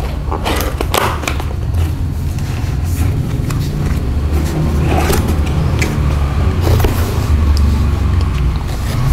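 Cardboard keyboard box being opened by hand: scattered scrapes, taps and rustles of the cardboard and packaging, over a steady low rumble.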